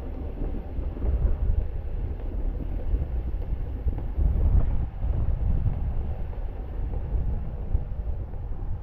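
Wind buffeting a handheld camera's microphone as the rider moves along on an electric unicycle: an uneven, gusting low rumble.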